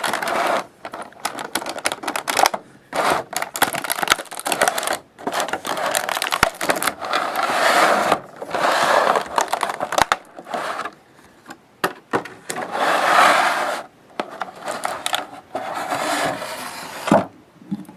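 Packaging being handled close up while a boxed bobblehead is unpacked: cardboard and wrapping rustling, scraping and crinkling in irregular bursts with short clicks and brief pauses.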